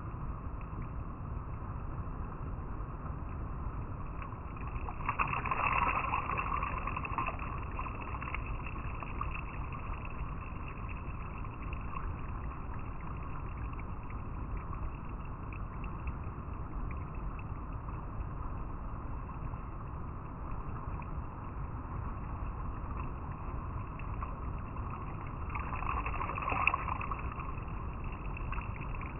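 River water flowing and rippling over rocks, a steady rush that swells louder twice, briefly, about five seconds in and near the end.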